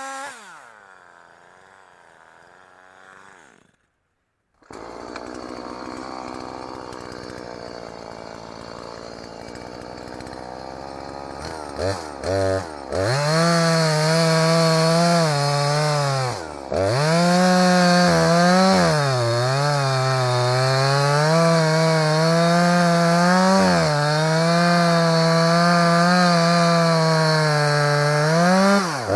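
Husqvarna 340e two-stroke chainsaw: the engine runs quietly, cuts out for a moment about four seconds in, then from about twelve seconds opens up to full revs. Its pitch sags and recovers over and over as the chain is worked through wood, with a brief drop back near seventeen seconds.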